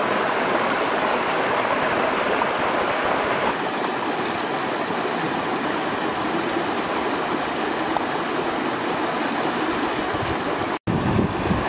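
Shallow river water rushing over rocks in a steady, even rush, with a momentary dropout near the end.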